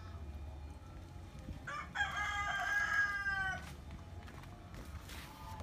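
A rooster crows once about two seconds in, a single call of nearly two seconds whose pitch drops slightly at the end.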